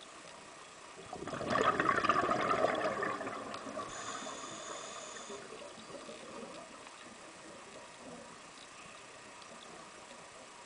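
A scuba diver's exhaled bubbles rushing and gurgling out of the regulator, swelling about a second in and fading away over the next few seconds.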